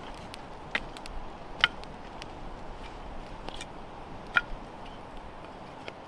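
Small wood campfire crackling, with several sharp pops over a steady low hiss.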